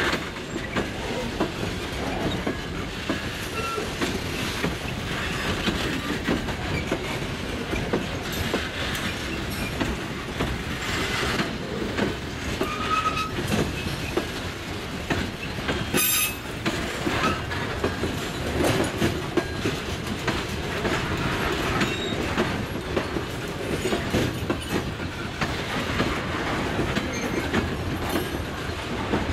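Freight train of covered hopper cars and boxcars rolling past, a steady rumble with wheels clicking over rail joints and a few brief wheel squeals.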